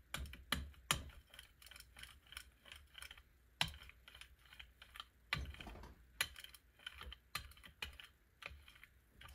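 Rubber brayer rolled back and forth over a Gelli plate through wet iridescent medium, making irregular soft clicks and crackles with a few heavier knocks.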